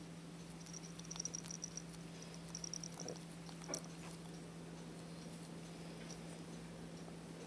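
Faint, small wet clicks and ticks of a young ferret licking its paws and washing its face, coming in short clusters, over a steady low hum.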